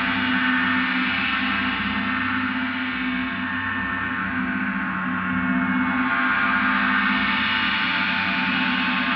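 Gong ringing on in a continuous wash of many overlapping tones, with no distinct strike. Its upper tones swell about a second in, ease off through the middle and swell again near the end.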